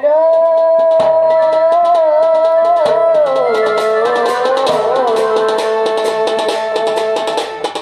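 Folk music with drums: one long held melodic note that dips lower about three and a half seconds in, over quick, steady strokes on a two-headed barrel drum.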